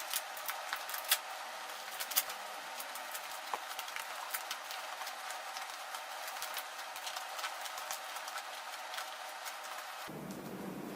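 Handling noise of a leather full-gauntlet motorcycle glove being pulled onto the right hand: faint rustling with many small clicks and taps over a steady hiss.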